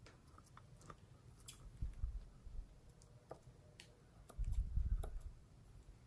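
A rubber balloon being handled and squeezed, giving scattered faint clicks and soft low bumps, with scissors snipping into the balloon a little past the middle. The loudest sound is a stretch of low muffled bumping from the handling.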